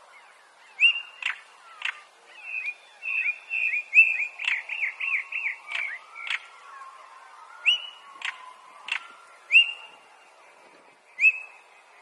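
European stonechat calling: short rising whistled notes mixed with sharp, stone-like clicking 'tak' notes. A quick run of repeated chattering notes comes in the middle.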